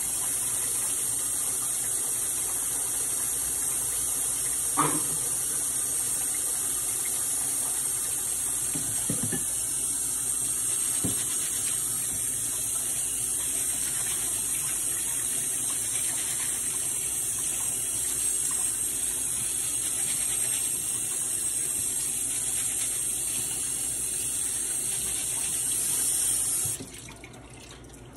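Kitchen tap running steadily into a sink as rice is rinsed until the water no longer runs white with starch, with a few light knocks of handling; the water is shut off abruptly near the end.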